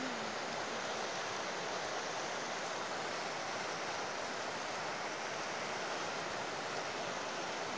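Steady rushing of a swollen, muddy river running in flood: an even, unbroken hiss of moving water.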